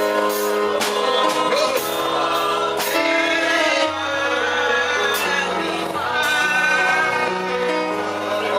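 Gospel worship music: sustained keyboard-like chords with singing voices over them and a few sharp percussion hits.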